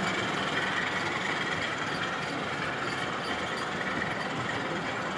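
O gauge model diesel locomotive running on the layout: a steady, even engine-like drone with no change in pitch or level.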